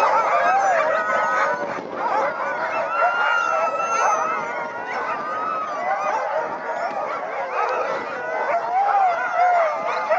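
A chorus of many sled huskies calling at once, with overlapping high yelps, whines and drawn-out howls that rise and fall without a break.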